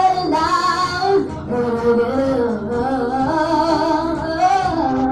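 Female vocal group singing a song live into handheld microphones, amplified through a PA, with long held notes.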